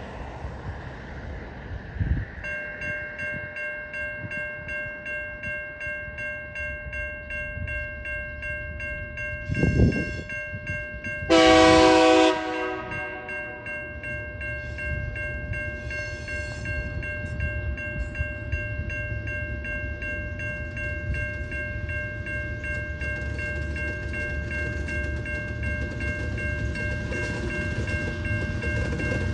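Level crossing warning bell ringing steadily from about two seconds in while a TasRail TR class diesel locomotive approaches, its low engine rumble slowly growing louder. The locomotive's horn gives a short toot near ten seconds and one loud blast about a second long just after eleven seconds.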